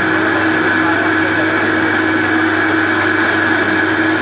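Metal-turning lathe running steadily, its cutting tool taking a cut on a workpiece spinning in the chuck: a steady hum with a high whine over the machine noise.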